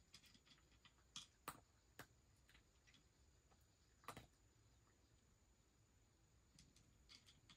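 A cat crunching dry kibble from its bowl: faint, irregular crunchy clicks, a few sharper ones between one and two seconds in, another around four seconds and a small cluster near the end.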